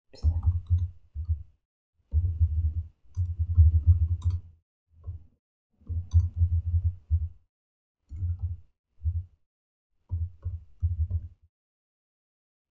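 Typing on a computer keyboard in short bursts of keystrokes separated by brief pauses.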